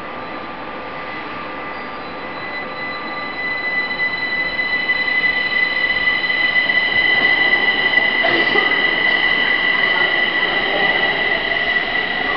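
Kaohsiung MRT Siemens metro train pulling out of the station. A steady high whine and rushing running noise swell from about three seconds in as it picks up speed and moves off.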